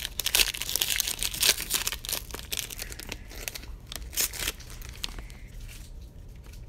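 Trading-card pack wrappers being torn open and crinkled: a rapid run of rips and crackles, busiest in the first four or five seconds, then lighter rustling.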